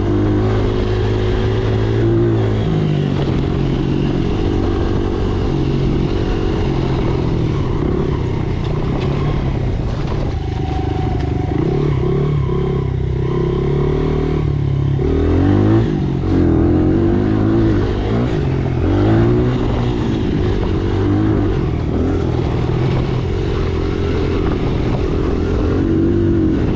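Dirt bike engine running while being ridden, its pitch rising and falling with the throttle, with a sharp drop and climb about fifteen seconds in.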